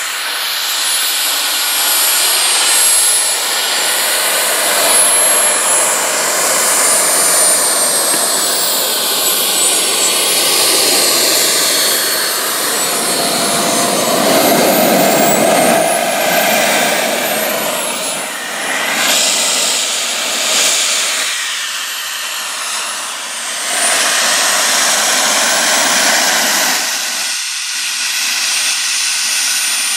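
Twin JetCentral Super Eagle model jet turbines, about 30 lb of thrust each, on a large RC F-4 Phantom, running as it taxis. Their high whistling whine rises and falls in pitch with the throttle, with a heavier rush around the middle as the jet passes close.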